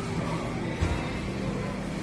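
Background music over a steady low hum, with a short dull bump a little under a second in.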